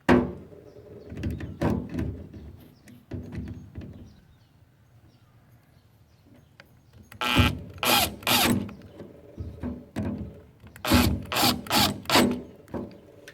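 Two screws being driven into the metal housing of a Noritz tankless water heater to hold the remote-control cable in place: a knock at the start, then two groups of short harsh bursts, one for each screw, about four seconds apart.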